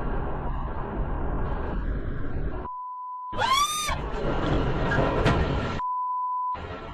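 Steady road and engine noise inside a moving car. About three seconds in, the audio is replaced by a steady beep tone, followed by a short high cry that rises and falls. The beep cuts in again near the end.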